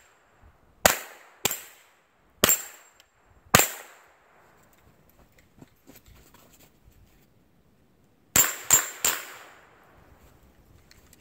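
Rifle shots: four single shots about a second apart, then a pause of several seconds, then three quick shots in a row near the end.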